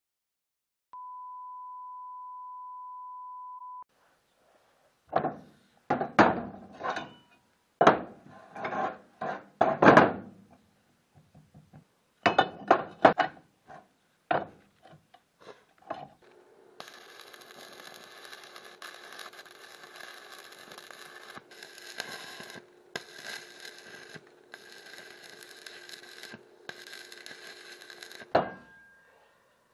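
A steady electronic beep for about three seconds, then steel pieces clanking and knocking as they are handled and set in place, then the crackling hiss of stick (arc) welding in several runs of a few seconds each, with short breaks between beads.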